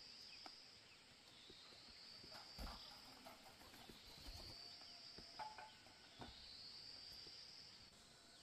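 Insects chirring faintly in long, high-pitched trills that repeat every couple of seconds, with a few soft knocks and thuds in between.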